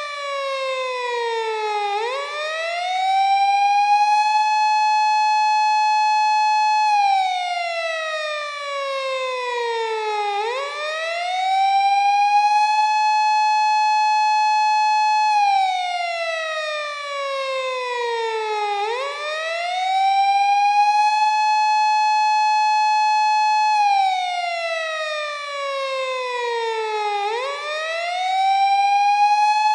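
Japanese police car siren wailing in its 8-second cycle: the tone holds high, slides slowly down, then sweeps quickly back up, over and over about every eight seconds.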